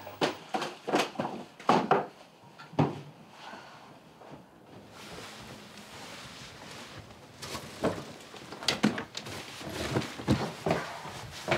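Hurried rummaging through a cabinet and a wardrobe: a quick run of knocks and clatters as things are pulled out and dropped, a quieter stretch of rustling in the middle, then more knocks and rustling of clothes and bags near the end.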